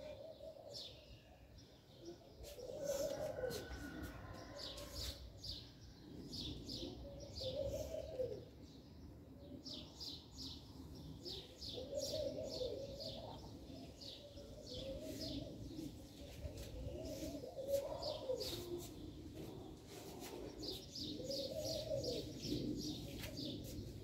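A dove cooing, a low phrase repeated about every four to five seconds, while small birds chirp in quick high runs around it.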